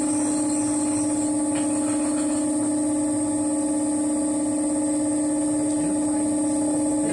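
Electric potter's wheel motor running with a steady hum, with a thin high whine above it.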